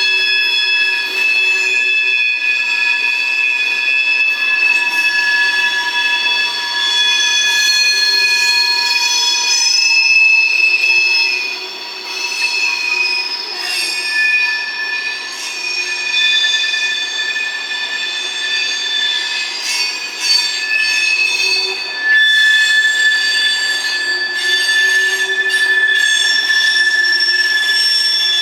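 CSX freight train rolling by with its wheels squealing: several high, steady screeching tones that come and go and shift in pitch over the rumble of the cars.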